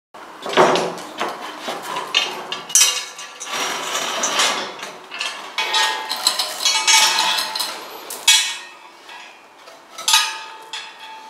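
Sheet-metal sculpture pieces and a hanging hoist chain clanking and rattling as the torso is handled and shifted into place: a string of irregular metallic knocks and clinks with bright ringing.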